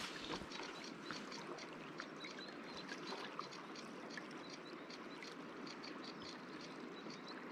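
Flowing river water: a steady, faint rush of current with small trickling splashes.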